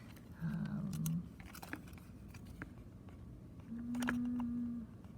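Small clicks and crunches of a plastic cassette shell being handled and tested for prying open. Two low hums cut through: a short wavering one early on and a steady, flat one about a second long near the end.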